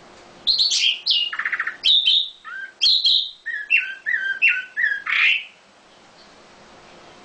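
A songbird singing one varied phrase of about five seconds, starting half a second in. It is a quick string of chirps and whistles with a short buzzy trill and a run of repeated lower notes, and it ends in a harsh note.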